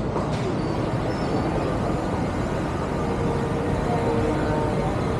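Steady rumble of city street traffic, dense with motorbike engines, with a faint held engine or horn tone partway through.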